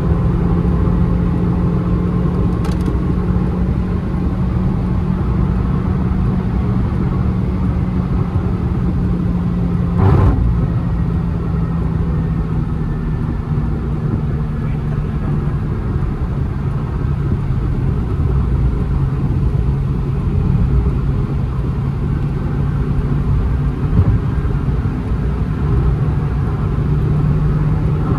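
Honda City's 1.5-litre four-cylinder petrol engine running at sustained high revs at highway speed, heard inside the cabin over road and tyre noise. A short thump comes about ten seconds in, after which the engine note settles a little lower, rising again near the end.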